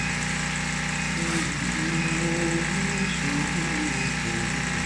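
Industrial hat brim sewing machine running steadily, its needle stitching in a fast, even mechanical rattle.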